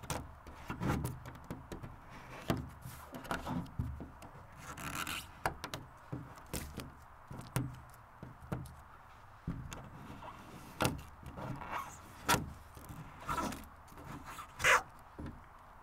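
Handheld blade scraper scraping vinyl sticker lettering off an aluminum boat hull, in short irregular strokes, with a few louder scrapes near the end.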